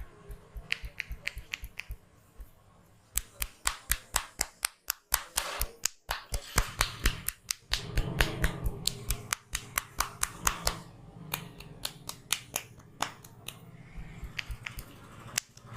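Sharp hand slaps and claps from the percussive strokes of a head massage, coming in quick rhythmic runs of several a second. The strikes are loudest and fastest from about three seconds in to about eleven seconds, and sparser before and after.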